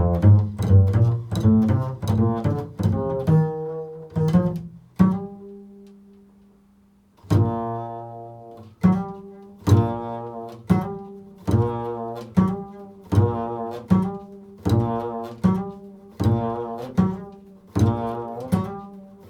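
Double bass played pizzicato in an improvised solo: a quick run of plucked notes, then one note left to ring and fade about five seconds in, then a steady repeating pattern of plucked notes.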